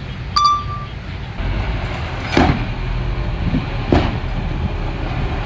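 Komatsu crawler bulldozer's diesel engine running, growing louder about a second and a half in, with a short ringing metallic clang near the start and two sharp metal clanks later.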